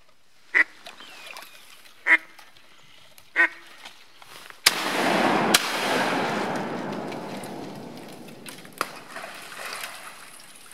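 A duck call blown three times in short, pitched squeals, a second and a half apart. Then a pump or semi-automatic shotgun fires twice in quick succession a little before halfway, over a rush of noise that fades over a few seconds, and once more, more faintly, near the end.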